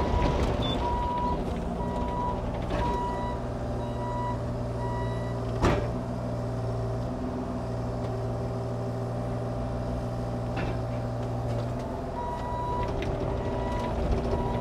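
Bobcat E35i mini excavator's Kubota diesel running steadily while its travel alarm beeps in a string of high pulses, which stop about a third of the way through and start again near the end. A single sharp clunk sounds a little before the middle.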